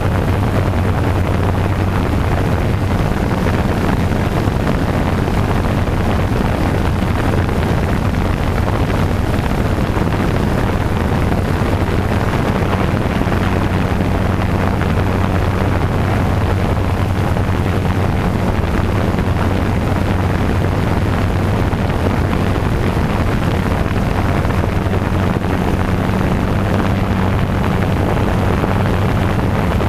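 Quadcopter drone's motors and propellers buzzing steadily in flight: an unbroken low hum with a higher overtone over a rushing hiss.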